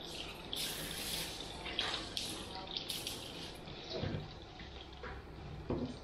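Water splashing in a salon shampoo basin as wet hair is rinsed and worked by hand, in irregular hissing spurts. Two soft wet knocks come about four seconds in and near the end.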